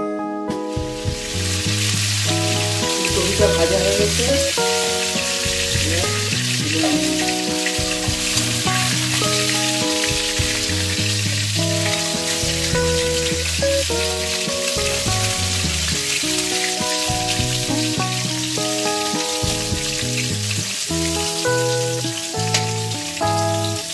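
Cauliflower florets frying in hot oil, a steady sizzling hiss that starts just after the beginning, over background instrumental music.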